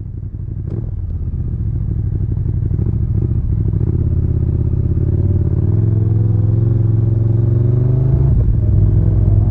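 KTM 1290 Super Duke GT's V-twin engine heard from on board the moving motorcycle, fading up at the start. The engine note climbs slowly as it accelerates, then dips briefly about eight seconds in, as with a gear change.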